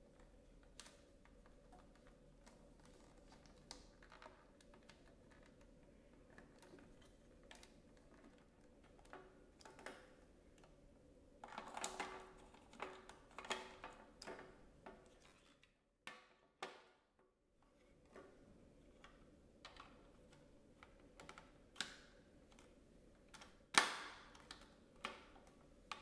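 Light clicks and taps of hard plastic parts being handled: a cable being pressed into the channels of a Dyson docking station's plastic back plate and the dock pieces being fitted together. A busier run of clicks comes about halfway through, and one louder snap near the end.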